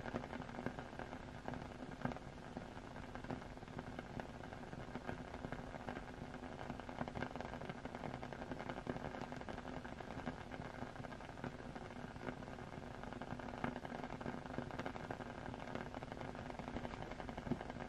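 Steady rain ambience: an even hiss of rain with frequent small crackles and a faint steady hum underneath.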